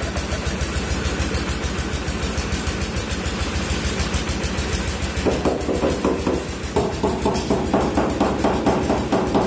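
An engine running steadily with a fast, even putter. About five seconds in, a louder, higher engine note joins it and carries on.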